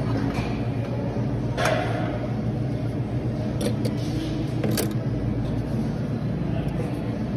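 Steady low machine hum, with a few sharp clicks, about one and a half seconds in and again near five seconds.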